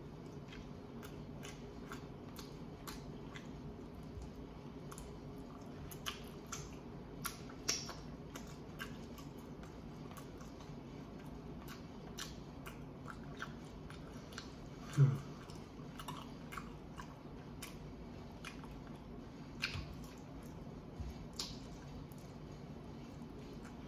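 A person chewing and biting into baked chicken drumsticks: scattered wet mouth clicks and smacks. About fifteen seconds in there is one brief, loud, low sound.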